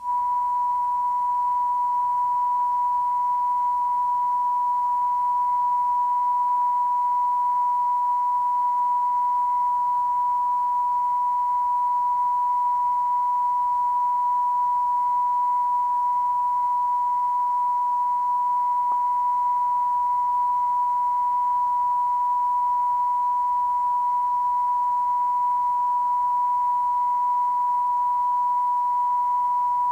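Steady 1 kHz sine test tone, the line-up reference tone laid at the head of a broadcast video tape; it starts abruptly and holds at one unchanging pitch and level.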